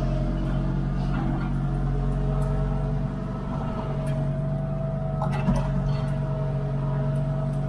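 International 1455 tractor's diesel engine running at a steady speed, its level easing slightly at the start and again about three seconds in, with a faint click about five and a half seconds in.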